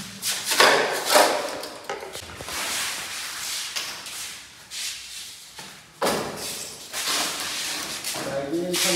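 Handling noise from PVC pipe fittings and cardboard boxes being moved about: a series of short, irregular rustling and clattering bursts. A man's voice starts near the end.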